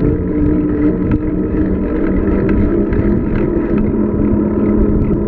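Wind buffeting the microphone on a fast downhill bicycle ride, a loud steady low rumble, with a steady hum and occasional faint ticks under it.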